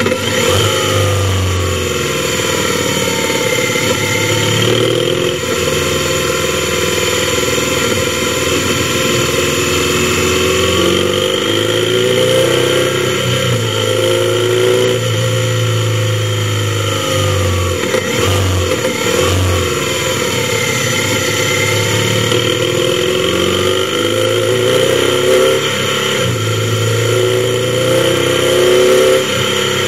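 Motorcycle engine running while riding, its pitch rising and falling with the throttle, with a brief drop around two-thirds of the way through.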